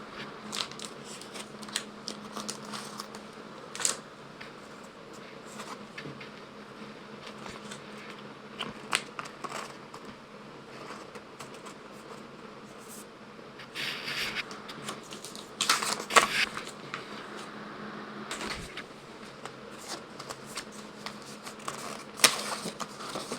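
Pokémon trading cards and their paper pack wrappers being handled: scattered small clicks and taps of cards being flipped, with brief rustles of packaging about halfway through and again near the end, over a faint steady hum.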